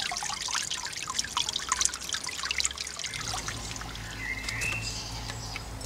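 Water trickling and splashing over stones in a small garden stream, a dense patter of droplets. About three seconds in the splashing fades to a low steady hum, and a short bird chirp is heard.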